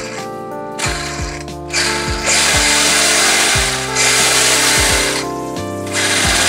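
Background electronic music with a steady thudding beat and held notes, broken by several long stretches of hiss.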